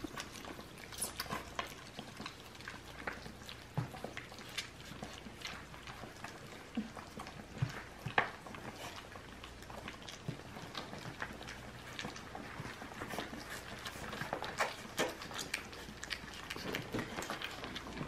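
A litter of three-week-old puppies eating raw chicken: many soft, irregular wet clicks and smacks as they lick, suck and mouth at the meat.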